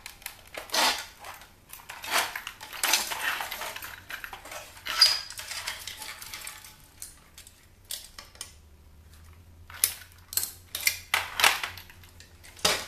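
Irregular clattering and clinking of the metal and plastic parts of a CD changer being handled and pulled apart, with a quieter pause about two-thirds of the way through.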